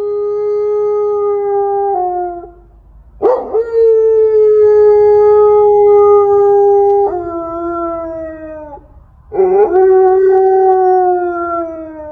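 Dog howling: three long howls, each rising into a steady held note and sagging in pitch at its end.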